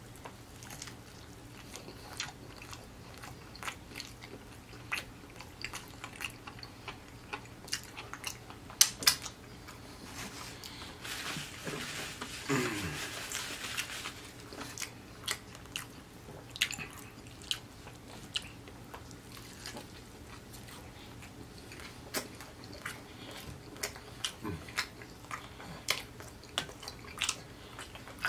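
Close-up sounds of a person biting and chewing a biscuit, with many small wet mouth clicks and smacks. About halfway through there is a louder breathy stretch with a low falling sound.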